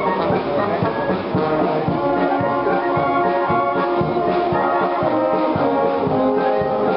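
Wind band playing, brass instruments carrying a held, sustained melody over a steady beat.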